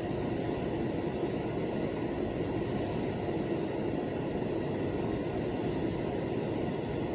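Freight train rolling past with a steady rumble.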